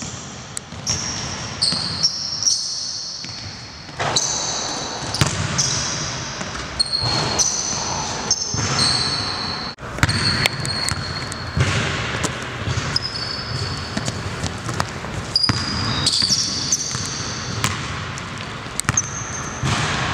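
A basketball bouncing on a hardwood gym floor, with many short, high-pitched sneaker squeaks as players cut and stop.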